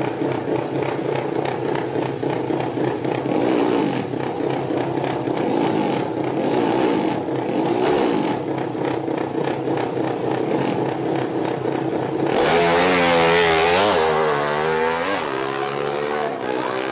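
Drag-racing motorcycle engine running and revving, with a rapid crackling clatter. About twelve seconds in the sound changes abruptly to a louder one with pitches that bend up and down.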